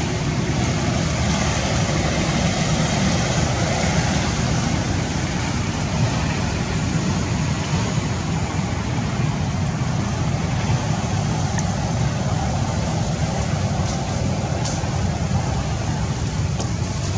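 Steady, loud outdoor background noise with a heavy low rumble and no clear pitch, with a few faint ticks near the end.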